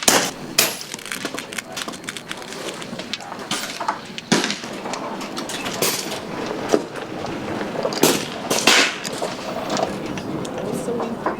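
Several sharp cracks at irregular intervals from PCP air rifles firing on a shooting line, over steady background noise.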